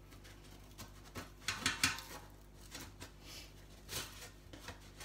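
Slotted spatula scraping and knocking against a perforated non-stick air fryer basket in scattered clicks and scrapes, busiest about one and a half to two seconds in, as pastry stuck to the bottom of the basket is pried loose.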